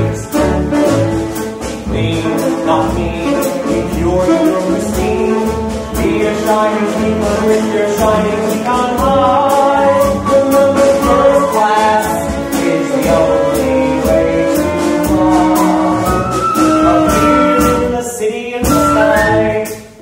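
A live musical-theatre song: a small pit band of woodwinds, strings, bass and drums plays under a sung vocal, with a steady drum beat.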